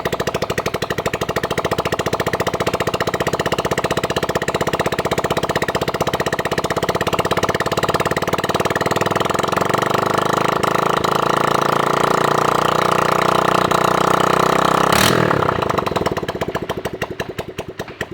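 Honda CG 125's single-cylinder four-stroke engine running steadily with a fast, even beat, getting a little louder partway through. About fifteen seconds in there is a sharp click, and the engine then slows and dies away as it is switched off.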